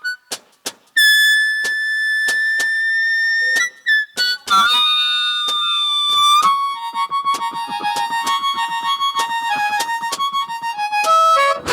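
Blues harmonica playing solo without vocals. A few short stabbed notes come first, then two long held notes, then a run of quick repeated notes.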